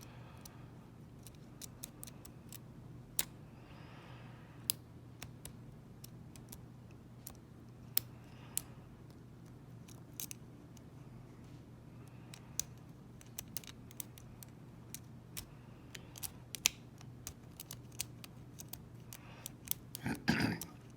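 Lock-picking rake scraping and clicking against the pin stack of a small Zeni pin-tumbler cabinet lock: faint, irregular light metallic clicks scattered throughout, with the lock not opening.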